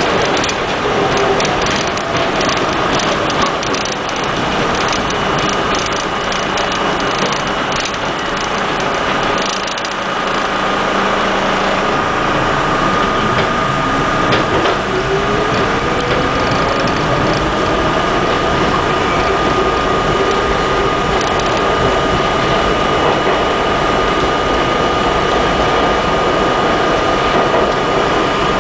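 Budd R32 subway car running through the tunnel, heard from the front of the train: steady clattering and rattling of the car and wheels on the track, with a steady high whine and a lower whine that rises in pitch about halfway through.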